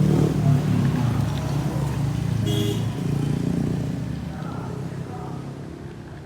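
A low engine rumble that fades away over the last couple of seconds, with a short beep-like tone about two and a half seconds in.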